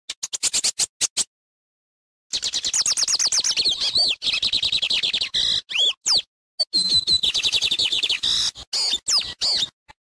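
Lined seedeater (bigodinho) singing: a short burst of quick notes, then, after about a second's pause, a long rapid song of chattering notes and slurred whistles lasting several seconds, with one brief break partway through.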